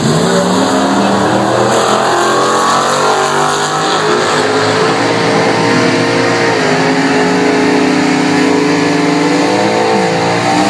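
Two drag-racing cars launching from the start line and accelerating hard down the strip, engines revving high; the pitch drops at a gear change about two-thirds of the way through, then climbs again.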